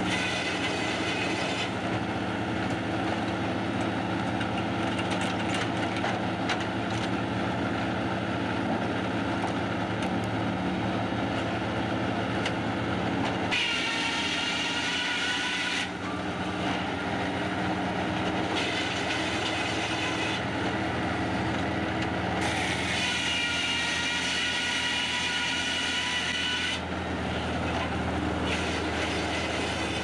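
Sawmill circular saw running steadily and cutting through a log over the hum of the mill machinery. A high-pitched whine comes and goes in several stretches of a few seconds each.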